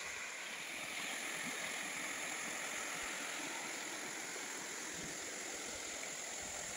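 Stream water running over rocks: a steady rushing.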